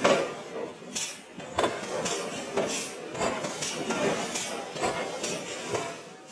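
Sharp metallic clanks and knocks, about one a second at an uneven pace, from a red-hot iron ring being forged on a steel mandrel.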